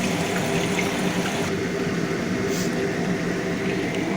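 Steady low mechanical hum, with a faint hiss of chicken wings frying in a pan.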